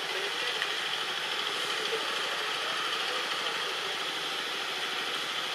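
Steady outdoor background noise with a constant high drone and no distinct calls, knocks or other events.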